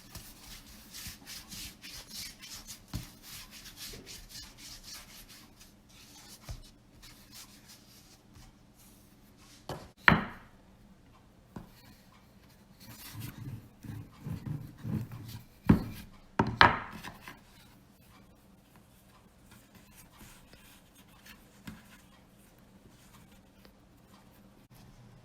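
Kitchen food-preparation handling: rubbing and scraping at first, then scattered knocks on a wooden surface, with two sharp loud strikes and a few dull thumps between them.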